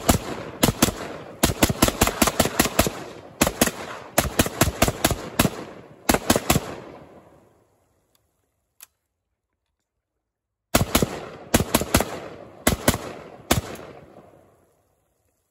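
SKS rifle firing 7.62×39 mm rounds in rapid semi-automatic strings, emptying a 30-round magazine. Shots come several a second, each trailing off briefly; they stop for about four seconds in the middle, then a last string of about eight shots follows.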